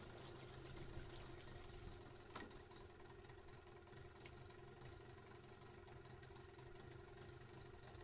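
Yamaha 15 hp two-stroke outboard motor idling steadily, freshly run on newly mixed gas and oil after a year and a half in storage. A single click sounds about two and a half seconds in.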